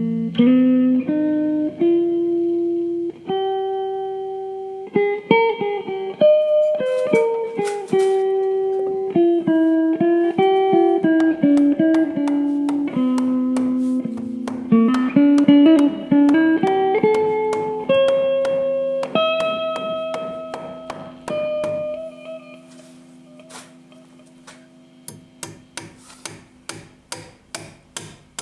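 Solo guitar music: a melody of single plucked notes that fades out about three-quarters of the way through. Near the end comes a quick, even run of sharp taps, about three or four a second.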